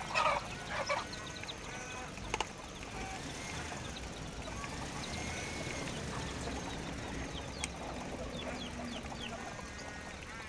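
Chickens clucking, with two louder calls near the start and many short chirping calls scattered throughout, over the faint motor whine of a toy radio-controlled excavator at work.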